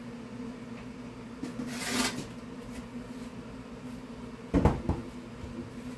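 Kitchen cupboard being searched: a scraping slide about two seconds in, then two heavy thumps of a cupboard door shutting a little after halfway, over a steady low hum.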